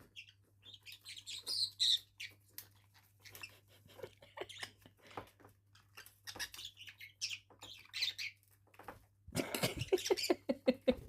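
Pet parrots chirping in short high calls amid many small clicks and scratches, with a louder burst of rapid chattering about nine seconds in.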